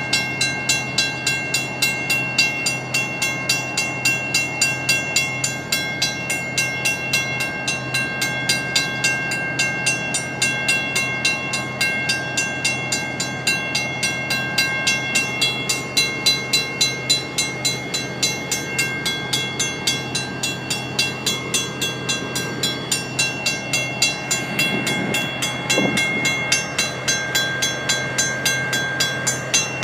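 A WCH mechanical crossing bell strikes steadily at about two strikes a second, each strike ringing on. Beneath it, the BNSF diesel locomotives hum steadily as they idle at the crossing, and a brief rising sound comes in near the end.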